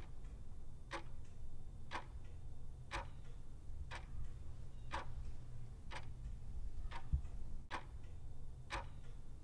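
Clock ticking about once a second over a low steady hum: a countdown-timer sound effect.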